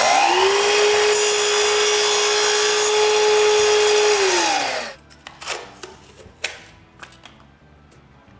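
Power saw running free just after cutting plexiglass, its motor speeding up to a steady whine, then switched off about four seconds in and spinning down. After that come a few light knocks and clicks.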